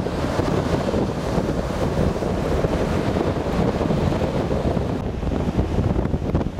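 Wind buffeting the microphone over the steady rush of heavy surf breaking on a sandy shore.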